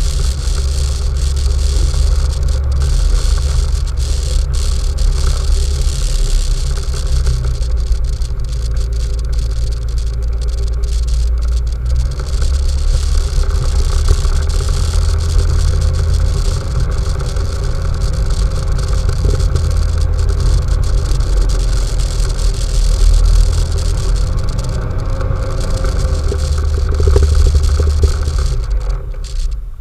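ATV fitted with snow tracks running steadily while riding through snow, with a strong low rumble from the engine and drivetrain. The sound drops away suddenly just before the end.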